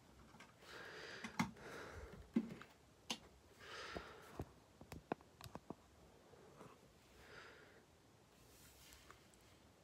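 Faint clicks and light knocks of a plastic building-block toy car being handled and rolled on a tabletop, a scatter of single ticks in the first half, with soft breaths in between.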